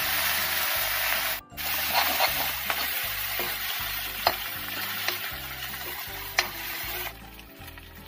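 Grated ginger and garlic sizzling in hot mustard oil in a kadhai, stirred with a spatula that scrapes and clicks against the pan a few times while the masala browns. The sizzle breaks off briefly about one and a half seconds in and drops away sharply about seven seconds in.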